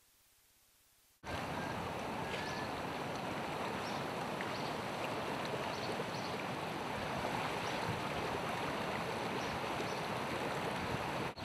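Steady outdoor rush of wind and water beside brown floodwater, cutting in suddenly about a second in after near silence, with a few faint high chirps over it.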